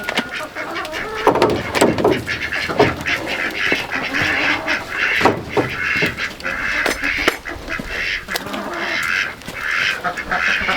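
A flock of farm poultry calling, with many rough, overlapping calls one after another and a few knocks among them.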